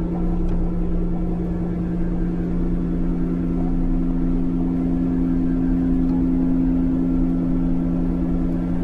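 Ambient drone of several low held tones over a steady rumbling noise bed, the middle tone swelling slightly partway through.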